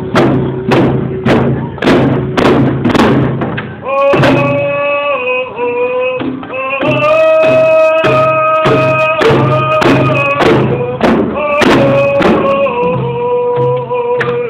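A group of hand drummers beating their frame drums together in a steady beat of about two to three strokes a second, and singing in unison. Their voices come in with long held notes about four seconds in.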